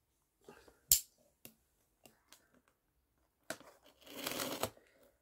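Packing tape being picked at and torn off a small cardboard box. A few sharp taps and ticks, the loudest about a second in, then about a second of tearing tape near the end.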